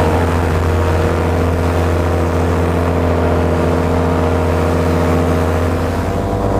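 Black Hawk 125 paramotor's two-stroke engine running at a steady speed, its tone shifting slightly about six seconds in.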